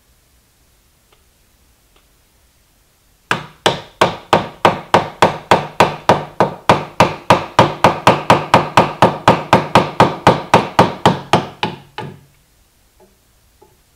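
Wooden mallet tapping a wood chisel in quick, even light blows, about four a second, cutting the trigger-guard mortise deeper in a wooden rifle stock. The tapping starts about three seconds in and stops about three seconds before the end.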